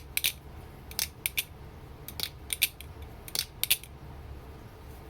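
Balisong (butterfly knife), a Tsunami clone with floating washers, being flipped: its handles and latch clack in sharp clicks, several in quick pairs, stopping about four seconds in. The clacks are pretty mute for a balisong.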